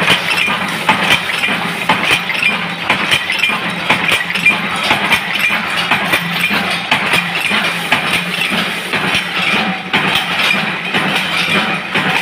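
Bolt-making machine running, its motor humming steadily under frequent metallic clanks from its forming strokes.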